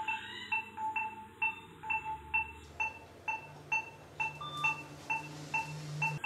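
Operating-room patient monitor beeping with the dog's pulse under anaesthesia: a short beep of the same pitch, repeating evenly about twice a second.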